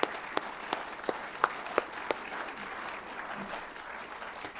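Audience applauding: many hands clapping in a dense patter, with a few louder single claps in the first two seconds, easing off gradually.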